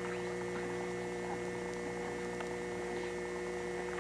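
Steady electrical hum with several fixed tones over a hiss of background noise, with a few faint ticks.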